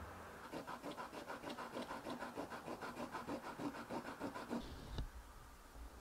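Rapid back-and-forth scraping strokes, about six a second, stopping at about four and a half seconds; a single knock about five seconds in.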